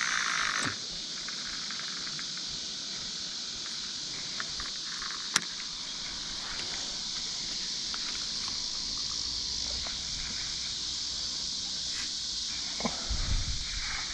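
Steady high-pitched chorus of night insects. There is one sharp click about five seconds in and a few low thumps near the end.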